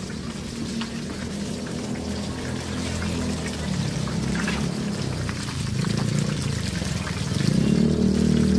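Battered pieces deep-frying in a large wok of hot oil, a continuous sizzling hiss, over a steady low hum that grows louder near the end.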